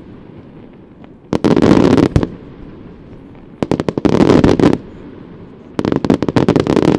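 Aerial firework shells bursting in three rapid volleys of loud bangs, each volley about a second long, with quieter stretches between them.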